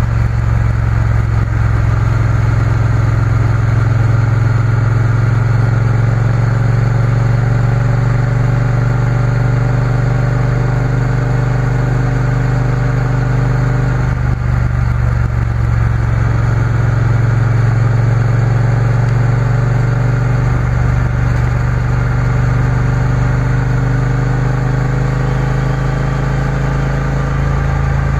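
Triumph Bonneville T120 parallel-twin motorcycle engine running steadily under way, heard from the bike with road and wind noise. Its pitch drifts slowly, and there is a brief dip about halfway through.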